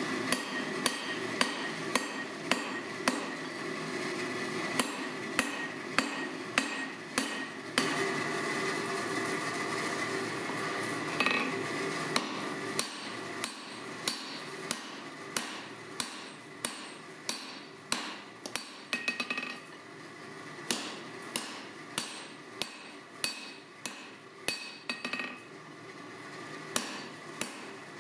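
Hand forging: a hand hammer strikes red-hot mild steel bar stock on an anvil again and again, each blow ringing. The blows come at an even rate of about one and a half a second, with a short lull a third of the way through.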